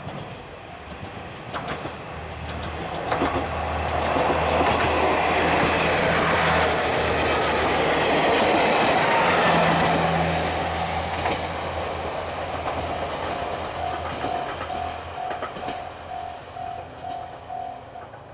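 Diesel train passing, growing loudest about four to ten seconds in and then fading, with wheels clicking over the rail joints. Near the end a level-crossing warning bell rings in even pulses, about two a second.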